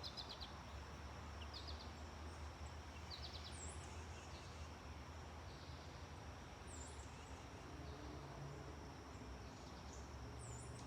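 Quiet background ambience: a steady hiss and low hum under a thin high whine, with short high chirps repeating every two to three seconds.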